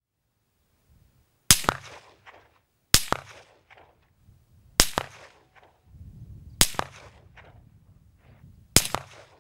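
Five rifle shots, about one and a half to two seconds apart, each a sharp crack followed by a second crack a split second later and a trailing echo.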